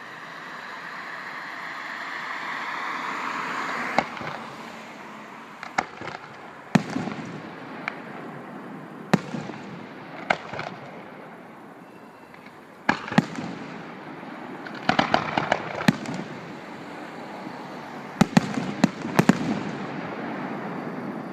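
Fireworks display: a swelling hiss for the first few seconds, then sharp bangs of aerial shells bursting, some single and some in quick clusters of several.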